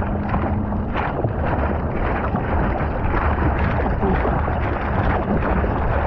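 Seawater splashing and rushing around a surfboard as the surfer paddles prone with arm strokes, with wind buffeting the board-mounted camera's microphone.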